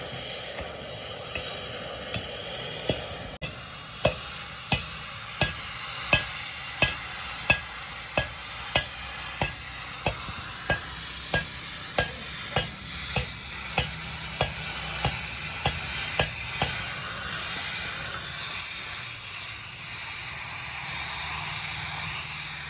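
Metalworking noise: a steady sizzling hiss, with a regular sharp metallic tick about twice a second that starts a few seconds in and stops a few seconds before the end.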